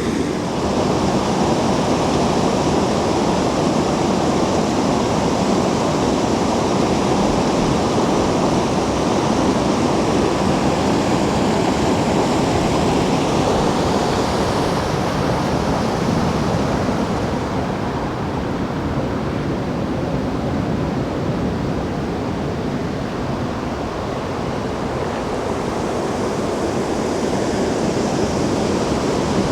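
Steady rushing of flowing creek water, a continuous even noise that loses some of its hiss a little past halfway.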